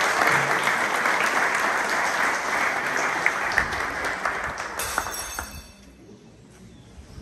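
Audience applauding. The clapping thins out and dies away about five and a half seconds in.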